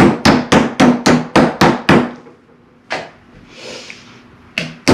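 Rapid knocks of a kitchen tool striking raw chicken breasts on a wooden cutting board, about five a second. A run of about ten strokes, a single knock near the three-second mark, a short lull, then the strokes start again just before the end.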